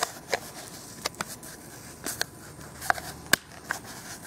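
Plastic paint pad being pressed into its plastic handle and worked under the retaining tabs: a string of sharp, irregular plastic clicks and taps, the loudest about three seconds in.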